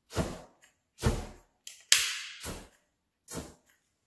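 Hand pump spray bottle of alcohol with dissolved sodium chloride squirted in short puffs through a lighter flame: about six sharp hissing spray bursts, the loudest about two seconds in, trailing a longer hiss.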